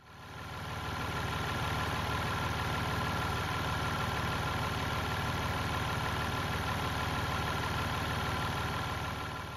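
Jeep Wrangler Rubicon's 3.0-litre EcoDiesel turbo-diesel V6 running at a steady idle, fading in over the first second.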